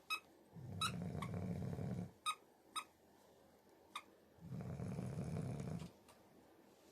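Snoring: two long, low, rasping snores about four seconds apart, with a few short, sharp high-pitched pips in between.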